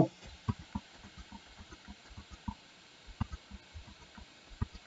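Faint, irregular clicking of a computer mouse and keyboard, several small clicks a second, as the Blender viewport is worked.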